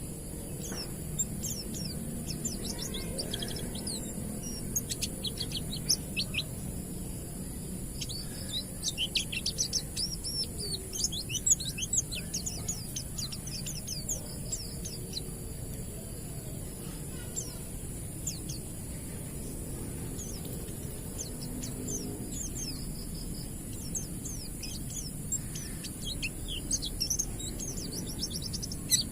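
White-eyes (pleci) singing in the wild 'ngalas' style: bursts of rapid, high twittering made of thin sweeping notes, over a steady high hiss.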